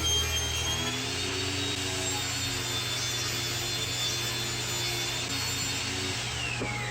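Power saw running and cutting plywood with a steady whine, its pitch falling near the end as the blade spins down.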